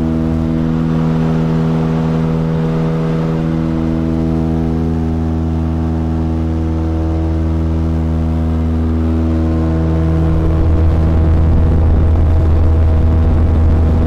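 Cabin drone of a small twin-engine propeller plane in flight: engines and propellers making a steady, loud hum made of several even tones. About ten seconds in, the low end of the hum grows slightly stronger.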